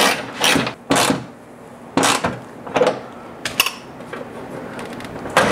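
Hand tool tightening a gas-strut mount on the underside of a car hood: half a dozen irregular clicks and knocks of metal on metal, with light scraping between them.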